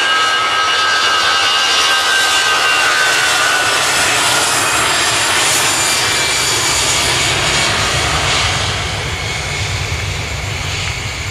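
Twin jet engines of an AirAsia Airbus A320-family airliner, loud, as it speeds along the runway past the listener. High whining engine tones sound over a broad roar at first, the roar is at its loudest mid-way, and it fades a little after about eight seconds as the jet moves away.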